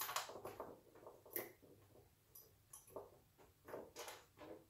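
Light, irregular clicks and taps of small screws and O-rings being handled and set into a metal VESA bracket on the plastic back of a monitor.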